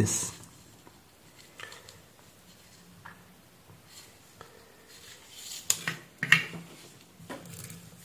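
Light handling noises of thin insulated wires being twisted together by hand, with scattered small clicks and a few sharper clicks and taps about five and a half to six and a half seconds in.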